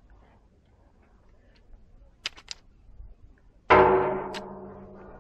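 Ruger GP100 .357 Magnum revolver: two or three sharp metal clicks as it is readied, then about three and a half seconds in a single shot of a reduced-power load, a sudden loud report with a ringing tail that fades over about a second and a half.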